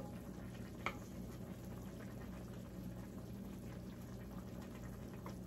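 Chicken wings simmering in a soy-sauce adobo braise in a pan, bubbling quietly while a wooden spatula stirs them, with one light knock about a second in. A steady low hum runs underneath.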